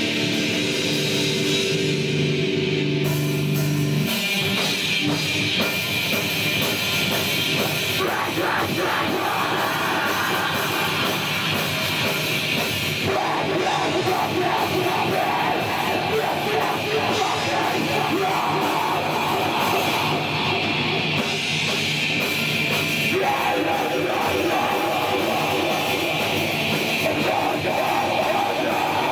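Black metal band playing live at full volume. A held chord rings for about the first four seconds, then the full band comes in with dense, fast heavy metal.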